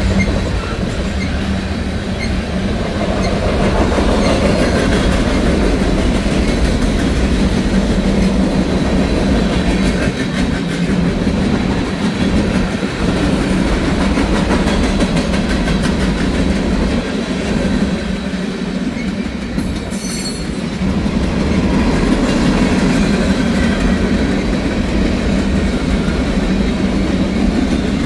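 Union Pacific freight cars (tank cars and covered hoppers) rolling past close by: a steady rumble with the clickety-clack of steel wheels over the rail joints. A short high screech from the wheels about twenty seconds in.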